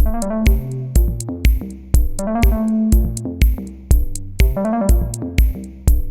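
Electronic background music: a steady kick-drum beat about twice a second with hi-hat ticks and synthesizer or keyboard melody.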